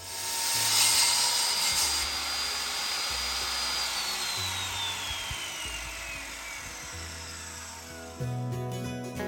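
A power tool runs at speed with a high whine, then the whine falls steadily in pitch over several seconds as the motor spins down.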